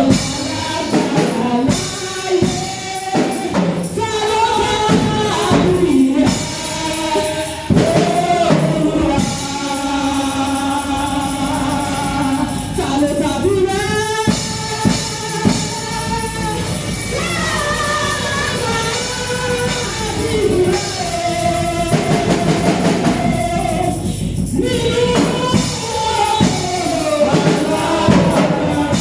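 Gospel worship singing by several voices, backed by a drum kit.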